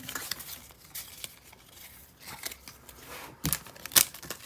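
Foil Pokémon Vivid Voltage booster-pack wrapper crinkling as it is gripped and handled, with light card-handling clicks and two sharp crackles near the end, the louder one about four seconds in.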